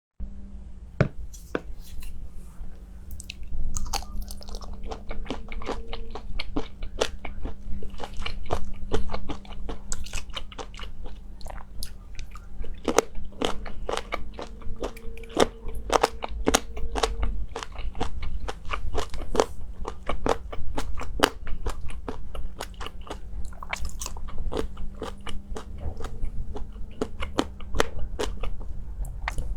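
Close-miked eating: crisp bites and crunchy chewing, a dense irregular run of sharp crackles, over a faint low steady hum.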